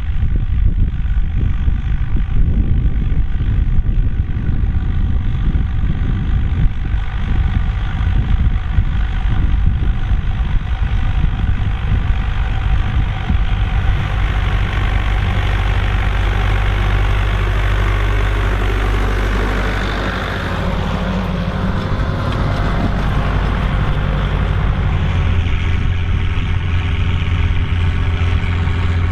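Volvo BM tractor diesel engine running steadily with a deep rumble. It eases briefly about twenty seconds in, then settles into a clearer, even drone near the end.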